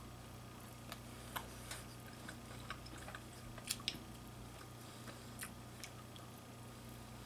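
Faint eating sounds: scattered small clicks and wet mouth smacks while eating seafood, with two sharper clicks near the middle, over a low steady hum.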